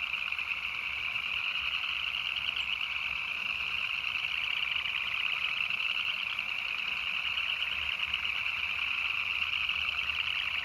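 A dense, continuous chorus of spring peepers calling from a small pond, a steady wall of high peeping with no pauses. The chorus of these tree frogs is the early sign of spring's breeding season.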